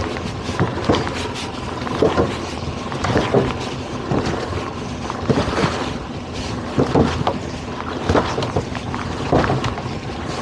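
Towboat's outboard motors running as the boat moves through light chop, with wind buffeting the microphone. Irregular sharp knocks come through it, roughly once a second.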